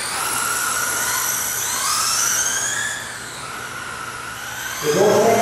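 Electric motors of several radio-controlled racing trucks whining, their pitch rising and falling as they accelerate and slow around the track. Near the end a louder sound with several steady tones starts over them.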